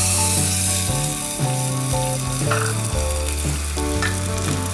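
Soaked tamarind pulp poured into hot oil tempered with mustard seeds and curry leaves in a small saucepan, sizzling hard as the liquid hits the oil. The sizzle is loudest at first and then eases off.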